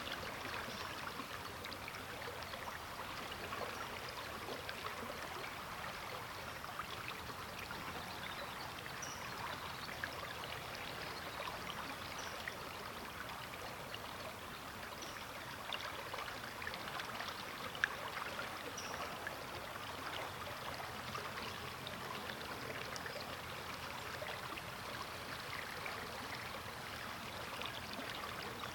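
A river flowing steadily: an even wash of moving water, dotted with many small splashes and trickles.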